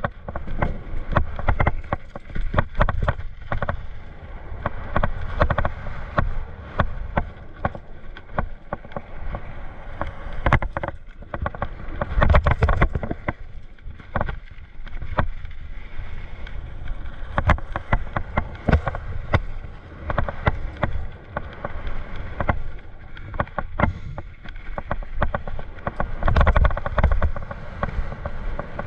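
Mountain bike riding down a rough dirt trail: a constant rattle and clatter of the bike over the bumps, with a steady rumble underneath and sharper knocks every second or so.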